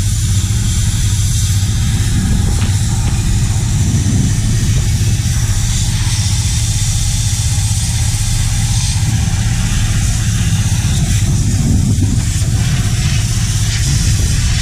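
Pressure washer running: a steady motor-and-pump hum under the constant hiss of the high-pressure water jet.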